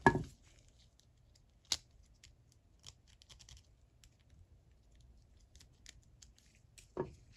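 Small metal clicks and light scrapes of a hook pick working a tiny snap ring into its groove on the reversing-switch pin of a Cornwell JR-30 ratchet head. A dull knock at the very start is the loudest sound, with a sharp click a little under two seconds in and another knock near the end.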